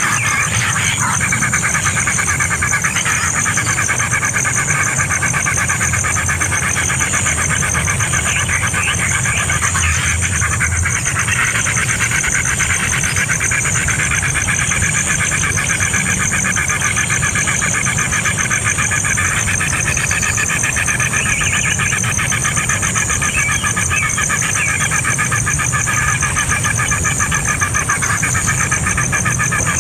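Baby birds in a nest cheeping continuously and steadily, over a constant high buzz.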